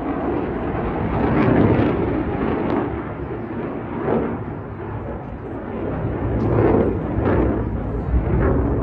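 Dassault Rafale fighter's twin afterburning jet engines roaring in a flying display, the deep rumbling noise swelling and easing as the jet manoeuvres.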